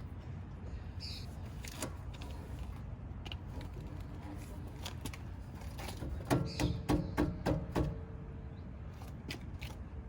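Metal clicks and knocks from hand tools working on a coilover's top mount while its camber is adjusted, with a quick run of about seven sharp knocks a little past the middle.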